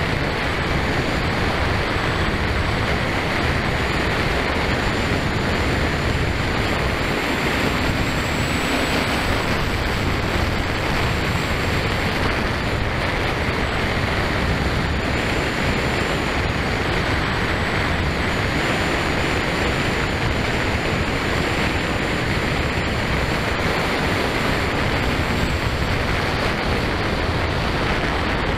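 Kawasaki KLR650 motorcycle riding at a steady speed: constant rushing wind and road noise on the camera microphone, with the single-cylinder engine running underneath.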